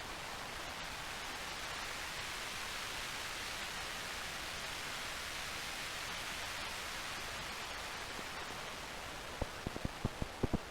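Synthesized rain from a modular synthesizer: a steady filtered-noise hiss. About nine seconds in, sharp low crackling pops begin and come faster toward the end, the start of the synthesized thunder.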